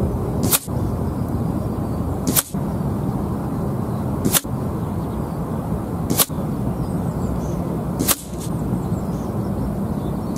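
Five shots from a sub-12 ft-lb pre-charged pneumatic air rifle firing .177 JSB KnockOut slugs, each a short sharp crack, about two seconds apart, over a steady low background noise.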